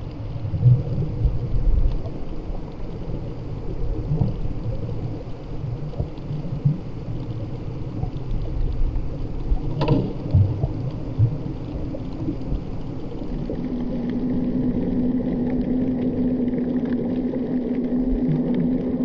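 Underwater sound: a low, uneven rumble of moving water, with one sharp click about halfway. About two-thirds in, a steady low engine hum, most likely a motorboat carried through the water, comes in and holds.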